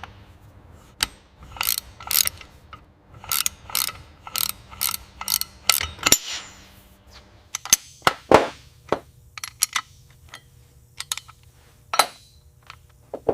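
Sharp metallic clicks from hand tools working on engine parts: a quick run of about two clicks a second, then scattered single clicks.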